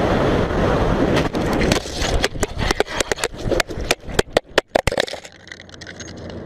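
Steady rush of wind and road noise from a motorcycle at speed, then, about a second in, a rapid irregular run of hard knocks and scrapes as the crashing motorcycle's camera tumbles and strikes the ground, ending in a much quieter hiss once it comes to rest.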